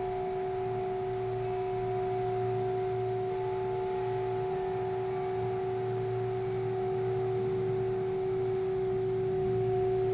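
Chapel Temple Chimes ringing on in long, steady overlapping tones, one strong lower pitch with a cluster of higher pitches above it, swelling slightly towards the end. A low wavering hum sits beneath.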